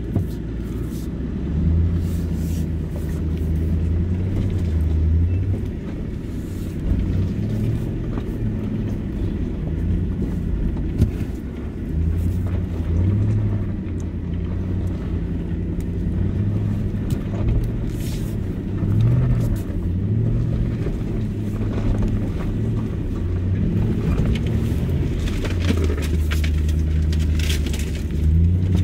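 Nissan Patrol Y62's petrol V8 running at low revs while crawling up a rough, rocky track, heard from inside the cabin, its pitch rising and falling as the throttle changes. There is rumble underneath and occasional knocks from the vehicle.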